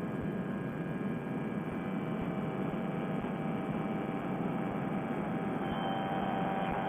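Fresh Breeze Monster two-stroke paramotor engine running steadily at cruise power in flight, a constant drone with wind rush and no change in pitch.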